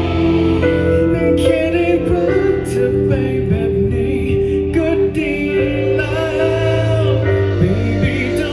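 Live band playing a slow song over sustained chords, with a male lead singer singing into a handheld microphone.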